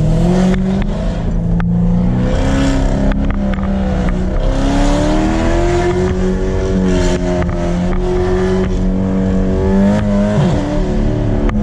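Dodge Charger Scat Pack's 392 Hemi V8 running hard on an autocross course. The engine pitch rises and falls repeatedly as the throttle comes on and off, with a quick drop in pitch about ten and a half seconds in.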